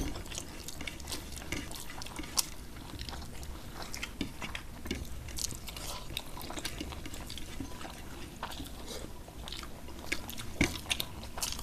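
Close-miked eating sounds of two people eating rice and curry by hand: chewing and mouth sounds, with scattered small clicks as fingers mix rice on the plates. There is a sharper click about two and a half seconds in and a cluster of them near the end.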